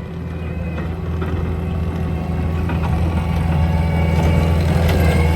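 Diesel engine of a Cat 289 compact track loader running steadily under load while it pushes snow with a plow, growing gradually louder.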